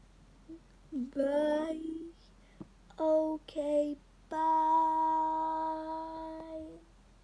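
A young girl singing wordless notes: a wavering, sliding note, then two short notes, then one long held note that slowly fades.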